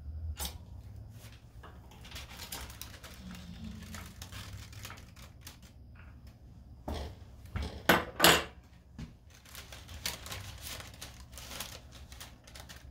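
Parchment paper being peeled and unfolded around freshly pressed rosin, rustling and crackling with scattered small clicks, and two sharp knocks about eight seconds in.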